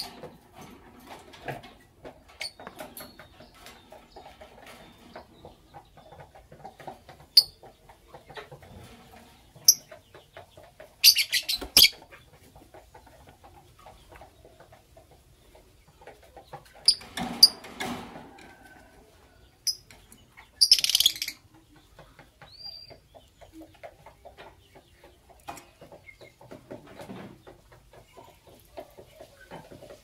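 Blue lovebirds giving short, shrill chirps: scattered single calls, with quick clusters near the middle and about two-thirds through. Between them there is light scratching and pattering of a bird moving about the wire cage.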